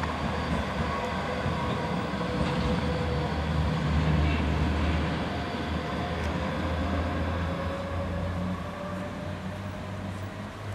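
NGT6WL Leoliner tram running on its rails and moving away: a low rumble with faint steady whines above it, loudest about four seconds in, then fading.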